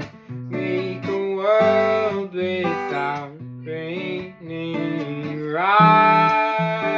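Acoustic guitar playing an original song, with two long wordless sung notes that slide up into pitch, about a second and a half in and again about five and a half seconds in.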